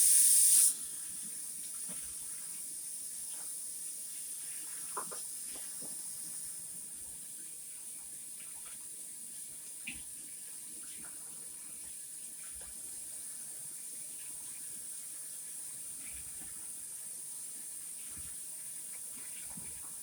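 Kitchen faucet running into the sink. It comes on with a loud gush, then settles to a steady stream, with a couple of light knocks.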